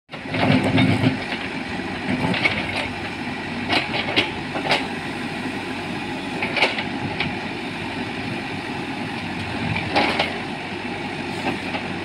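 Manitou backhoe loader's diesel engine running steadily while the backhoe digs soil, with sharp clanks from the bucket and boom at irregular moments: a cluster about a second in, several around four seconds in, and another near ten seconds.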